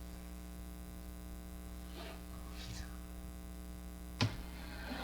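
Steady electrical mains hum, with a few faint handling noises and one sharp click about four seconds in.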